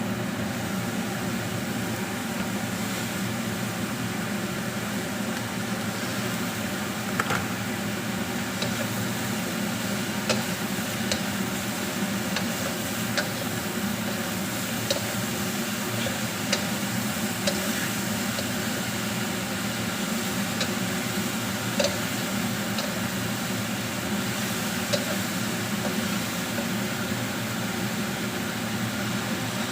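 Mushrooms frying in a pan: a steady hiss with scattered short clicks and ticks.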